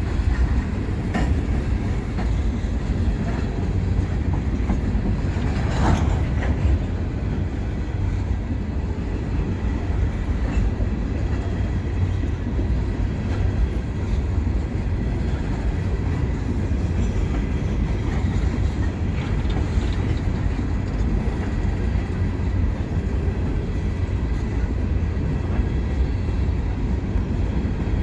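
Freight train cars rolling past on the rails with a steady low rumble, and a few wheel clacks; the sharpest comes about six seconds in.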